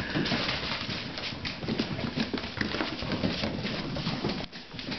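Puppies' and collies' claws clicking and pattering on a tiled floor as they scramble about, a quick irregular run of small taps with some soft bumps.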